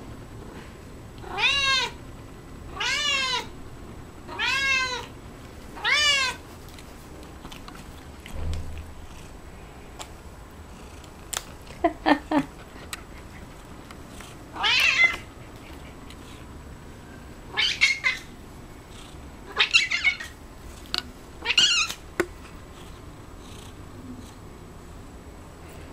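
Domestic cat meowing for cat grass held above its reach: four meows in a row, about a second and a half apart, each about half a second long and falling in pitch at the end. After a pause come several more meows and shorter calls, with a few small clicks among them.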